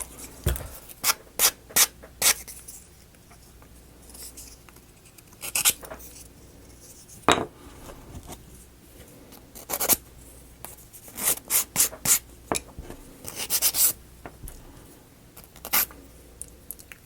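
Thin laser-cut wooden kit pieces being handled: irregular sharp clicks and small clatters of wood on wood, in clusters, with rubbing and scraping between them.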